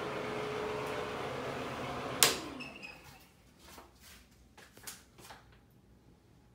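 A steady rushing noise that cuts off after a sharp, loud click about two seconds in, followed by a few light knocks and taps.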